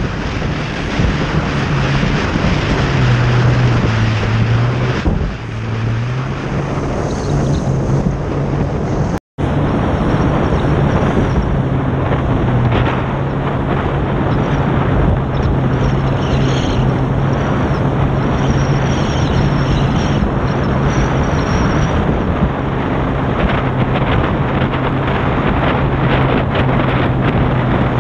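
Jet ski engine running under way, a steady drone with its pitch dipping and rising again a few seconds in, under heavy wind noise on the microphone and water rush. The sound cuts out for a split second about nine seconds in.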